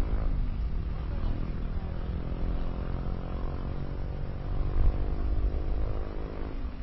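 A motor engine running steadily with a droning hum over a low rumble, its pitch drifting slightly.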